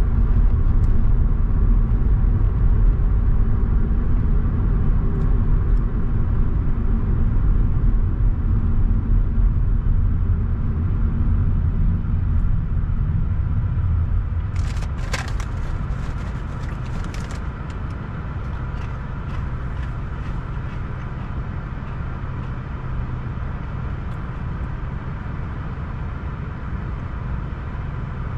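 Car driving on a road: a steady low rumble of tyres and engine that eases off a little about halfway through, with a short run of sharp clicks at about the same time.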